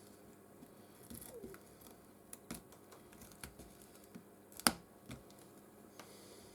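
Scattered light clicks and taps of small hand tools against a phone on a workbench, with one sharper click a little over halfway through.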